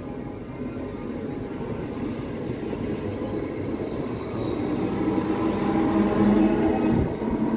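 NS electric passenger train rolling along the platform, wheels and carriages rumbling and growing louder, with a low steady hum joining about five seconds in.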